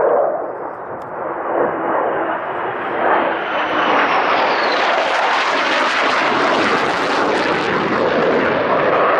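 Low-flying military jet passing through a valley: a jet roar that builds to a peak in the middle and stays loud, with a high engine whine that falls in pitch partway through as the jet goes by.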